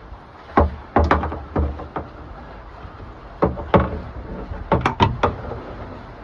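Irregular knocks and clunks, about a dozen in three or four clusters, from hands handling a battery charger and its cord while it is being set up and plugged in.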